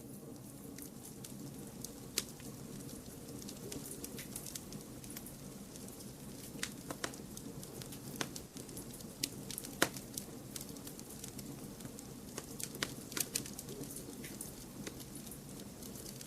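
Campfire crackling: irregular sharp pops and snaps over a steady low hiss, the sharpest pop a little past the middle.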